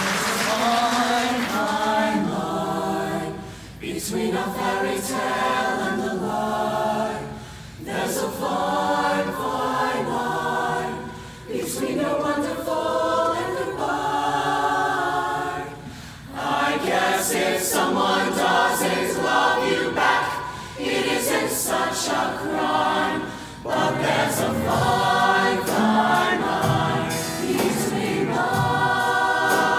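High school show choir of mixed voices singing together in harmony, in sung phrases of a few seconds each with short breaths between them.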